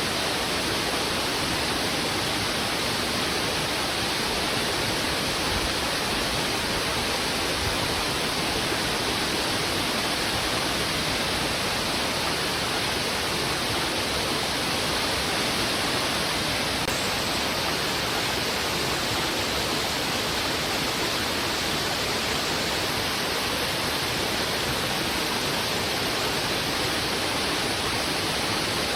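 Fast, heavy river water rushing over rocks: a steady, unbroken rushing noise.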